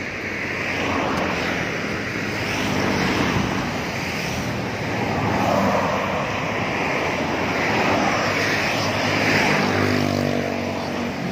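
Motorcycle engine running as the bike rides along a road, with road and traffic noise from cars passing close by; the engine's pitch climbs about nine seconds in as it speeds up.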